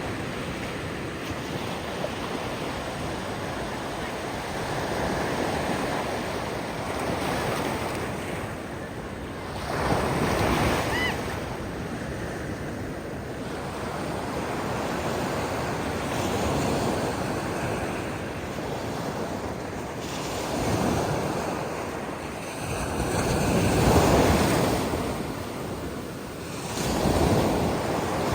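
Ocean surf: waves breaking and washing up the beach in a continuous rush. It swells louder every few seconds, and the biggest surge comes about three quarters of the way through.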